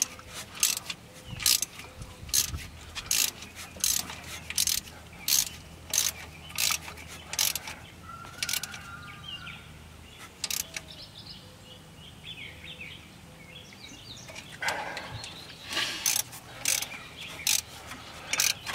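Hand ratchet wrench clicking in steady back-and-forth strokes, about one click every two-thirds of a second, as bolts are run down and snugged on the engine. The clicking stops for several seconds in the middle, with faint bird chirps, and starts again near the end.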